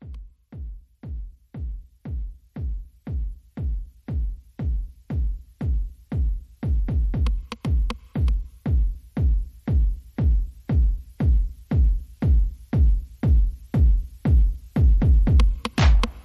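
Electronic dance music: a steady kick drum about two beats a second that fades in and grows louder, with high hi-hat ticks joining near the end.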